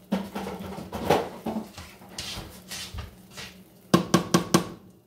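A wooden spoon knocks four times in quick succession against a stainless steel saucepan about four seconds in, after some soft rustling and scraping of the spoon in shredded cheese and noodles. A steady low hum runs underneath.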